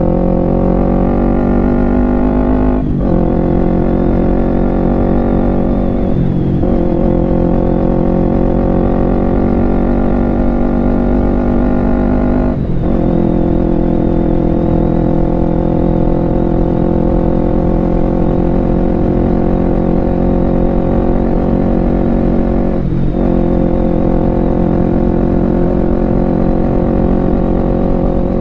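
Kawasaki Ninja 250 FI's parallel-twin engine running under way. The steady engine note breaks off briefly four times and comes back at a different pitch each time.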